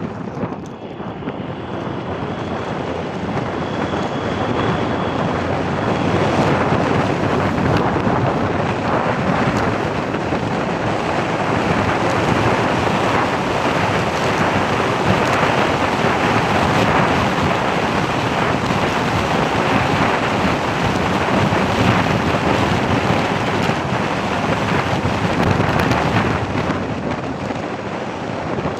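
Wind rushing and buffeting over the microphone: a loud, steady, rough rushing noise that swells and eases.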